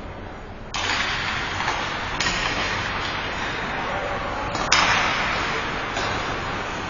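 Ice hockey skates scraping and carving the ice as play gets going: a sudden loud hiss that comes in surges as players push off. About two-thirds of the way in there is a single sharp crack.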